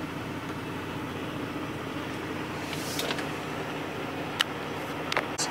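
Steady mechanical hum inside a semi-truck's sleeper cab, with a few small clicks and taps about three seconds in and near the end.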